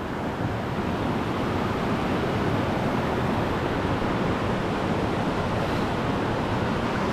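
Steady rushing of a river waterfall (Holeb Falls), a dense even water noise that grows a little louder over the first second and then holds.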